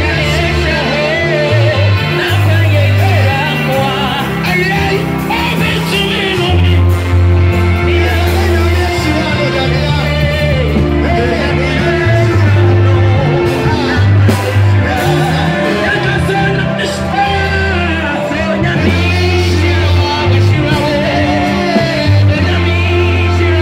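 Gospel ministration: a man singing through a microphone over amplified music with a steady, heavy bass line.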